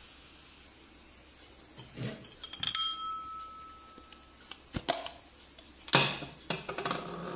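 Kitchenware clatter: a ceramic bowl clinks down on the counter about three seconds in and rings briefly, followed by more knocks and scraping of dishes near the end.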